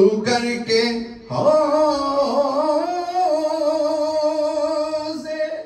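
A man's voice singing a lament in the melodic style of a Shia majlis elegy (noha): a few short phrases, then one long held note from about a second and a half in, wavering slightly in pitch.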